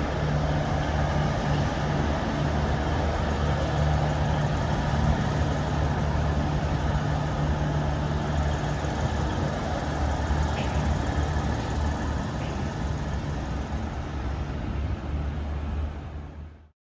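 V/Line VLocity diesel railcar set running slowly past: a steady low engine drone with rumble from the wheels on the track. The sound drops away and cuts off just before the end.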